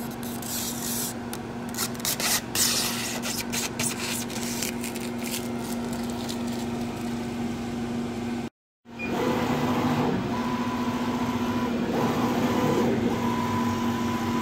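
CO2 laser cutter running with a steady hum, with a quick run of clicks from its control-panel keys being pressed a second or two in. Later a thin whine comes and goes several times as the laser head moves over the acrylic sheet.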